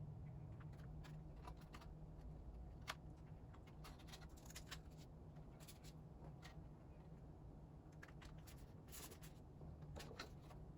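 Faint handling sounds of an album's packaging and cards being unpacked: scattered light clicks and short rustles of paper and plastic over a low steady room hum.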